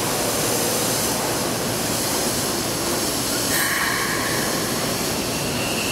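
Keikyu electric train standing at the platform before departure: a steady hiss and hum of its running equipment, with a steady high tone coming in about three and a half seconds in.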